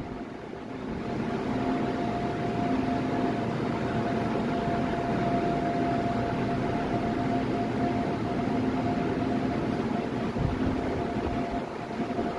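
Steady hum and rushing air of a subway car's onboard equipment and ventilation, with a steady whine over it and a lower tone that cuts in and out every second or so.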